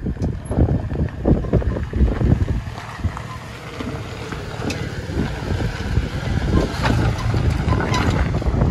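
Wind buffeting the microphone over an off-road truck driving down a steep trail, with irregular low thumps. It eases about three seconds in and builds again toward the end.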